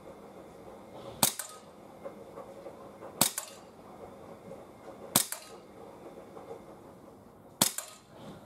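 Four shots from a Sig Sauer P226 X5 CO2-powered BB pistol, sharp cracks about two seconds apart.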